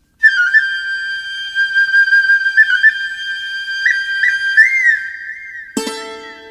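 Intro music: a flute holds a high note, ornamented with quick grace-note flicks and a short bend. Near the end, a plucked string instrument is struck once and rings on.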